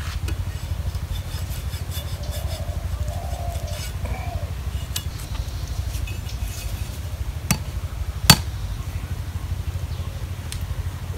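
Handling and trimming of a freshly rim-bound bamboo basket with a blade: faint scraping and rubbing of the bamboo, and two sharp knocks well past halfway, the second the loudest. A steady low rumble runs underneath.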